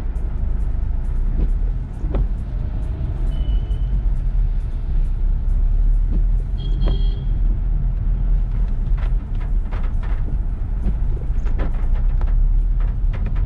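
Car driving in heavy rain: a steady low rumble of the vehicle with sharp ticks of raindrops, which grow denser in the second half. Two short high-pitched tones sound, about a third of the way in and near the middle.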